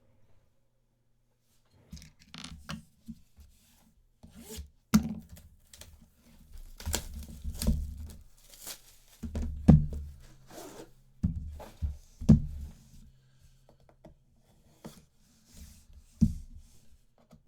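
A sealed hobby box of trading cards being torn open and handled. There are irregular tearing and crinkling noises with knocks and sharp clicks, starting after about two seconds of near silence.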